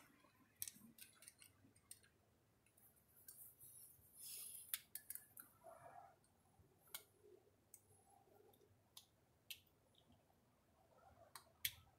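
Faint scattered metal clicks and scrapes of a screwdriver tip being worked around the wrist pin retainer clip of a Harley-Davidson Evo piston, following the spring clip round its groove to pry it out. A short, higher scrape comes about four seconds in.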